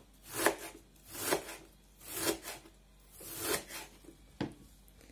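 Kitchen knife finely shredding a head of white cabbage on a cutting board: five slicing strokes about a second apart, the last ending in a sharp knock. The cutting then stops near the end.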